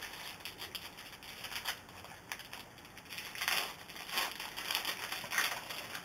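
Crinkling and rustling of a 2006-07 Bowman Draft Picks and Stars basketball card pack wrapper being torn open and handled, an irregular run of crackly rustles that grows louder in the second half.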